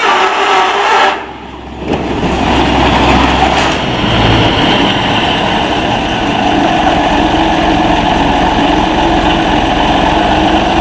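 Large four-wheel-drive tractor's diesel engine running steadily under load as it drags a heavily weighted sled across gravel. The sound dips briefly about a second in, then resumes.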